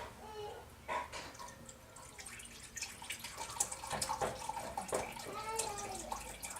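Chicken broth poured from a carton into a measuring cup, with irregular splashes and gurgles of the liquid.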